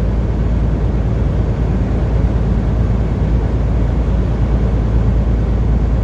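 Steady low road and engine rumble heard from inside a moving vehicle's cabin while driving on the highway.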